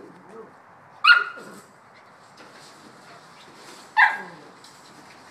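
Bouvier des Flandres puppy barking twice: two sharp, high-pitched barks about three seconds apart.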